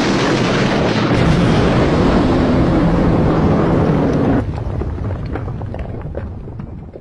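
Loud rushing noise with a low rumble, a fighter jet hit by a missile and exploding, which cuts off abruptly about four and a half seconds in. Quieter wind-like noise with scattered crackles follows and fades.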